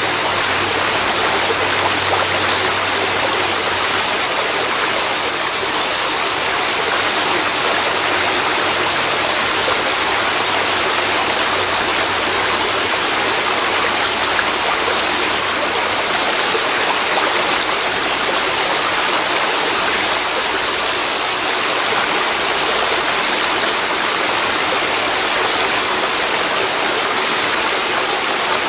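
A waterfall pouring into a river: a loud, steady rush of falling and churning water.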